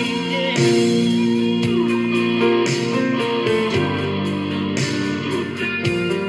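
Instrumental rock ballad passage with no singing: held electric guitar chords over a steady drum beat.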